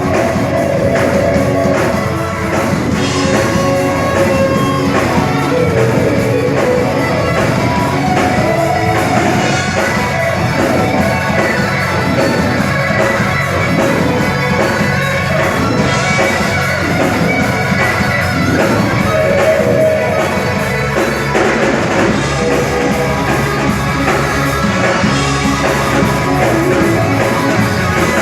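Rock band playing loudly: electric guitar lines over a drum kit, with little or no singing. The bass end fills out about 21 seconds in.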